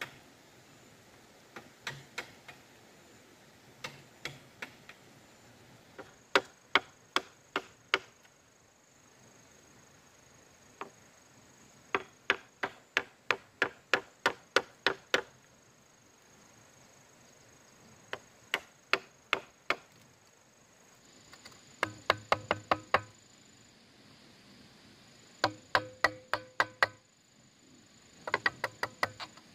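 Bamboo being struck in quick runs of sharp blows, about three or four a second, each run several strokes long with short pauses between. Some of the later blows ring hollow.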